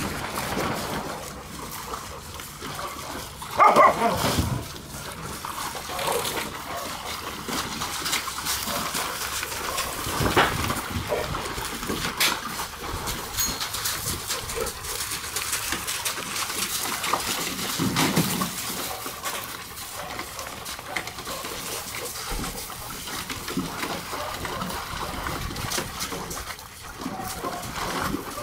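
Several dogs barking now and then, the loudest call about four seconds in, over the splashing and sloshing of dogs wading in plastic kiddie pools of water.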